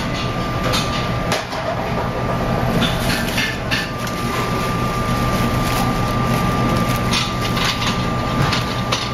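Steady hum of commercial kitchen ventilation and equipment, with a thin steady high whine over it and scattered clicks and clatters of utensils and dishes.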